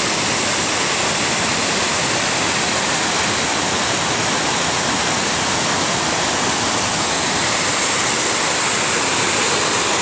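A large waterfall crashing into a narrow rock gorge: a loud, steady rush of falling water with no change in level.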